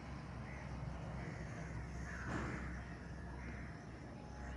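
Crows cawing faintly, about three calls, over a low steady hum.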